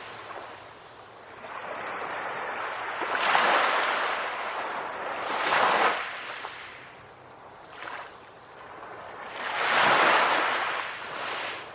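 Ocean waves breaking on a shore, the surf swelling and falling away in slow surges, with a larger wash about ten seconds in.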